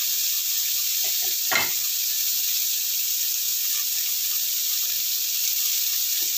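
Cucumber and baby corn sizzling steadily in a nonstick frying pan, with one short sharp tap about a second and a half in.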